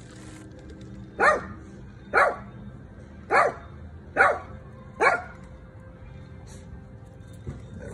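A dog barking in play: five sharp barks about a second apart, then a weaker one near the end.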